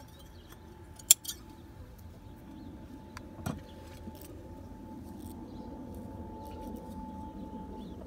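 Steel scissors snipping with a sharp metallic click about a second in, followed by a couple of smaller clicks and soft handling of wool felt and thread.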